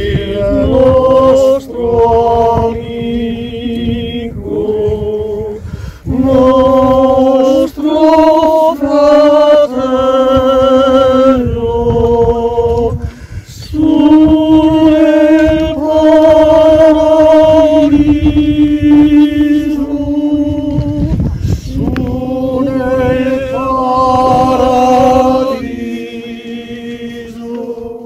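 A group of voices singing unaccompanied, in long held notes with short breaks between phrases.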